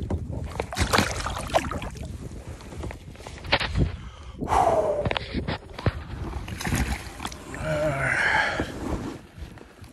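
Knocks, clicks and rustling of a landing net and fishing gear being handled in a kayak, with water sloshing.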